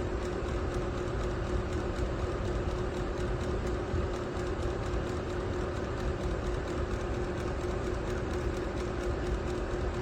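A JNDRO ceramic space heater with its fan running steadily on its low setting: an even whirring rush of air with a steady hum.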